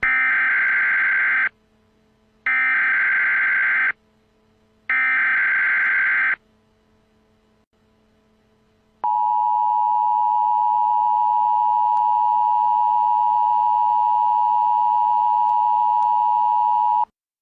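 Emergency Alert System tones: three short bursts of the SAME digital header, each about a second and a half long. After a pause comes the steady two-tone EAS attention signal, held for about eight seconds before it cuts off.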